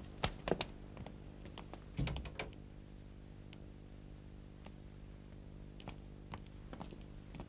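Light footsteps, irregular clicking and scuffing steps of a woman walking across a room, with a heavier knock about two seconds in, over a low steady hum.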